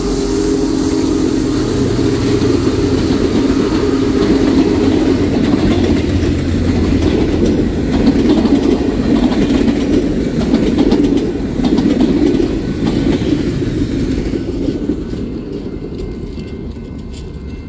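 Union Pacific passenger cars of a steam excursion train rolling past, their steel wheels making a steady rumble and clatter on the rails. The sound fades away as the last car goes by near the end.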